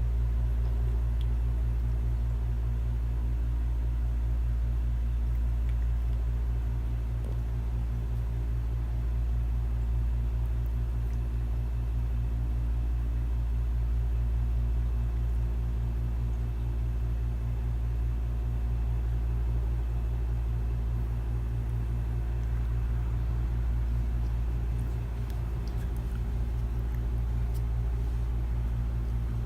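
Steady low-pitched hum with a rumble, unchanging throughout.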